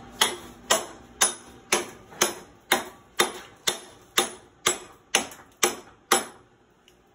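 Forged chopper knife repeatedly chopping into a deer antler clamped in a bench vise: about a dozen sharp strikes at roughly two a second, each with a brief ring, stopping about six seconds in.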